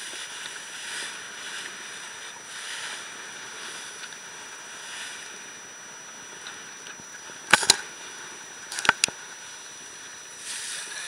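Water rushing and hissing along the hull of a Class40 racing sailboat planing at speed through rough sea, the rush swelling and easing every second or so. Sharp knocks cut through it: a quick double knock about two-thirds of the way in and a single one a second later.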